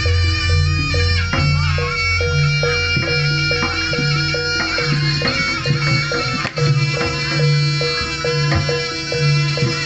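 East Javanese jaranan gamelan music: a nasal shawm-like reed (slompret) playing a sustained melody over a steady beat of low drum and gong pulses, about two a second, with short struck metallophone notes.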